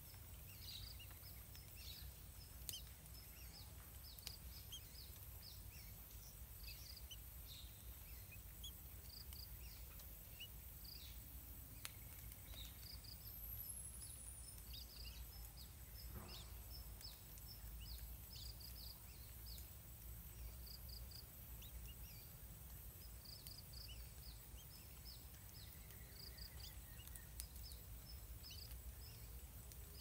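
Faint natural outdoor ambience: many short, high chirps repeat throughout over a low steady rumble.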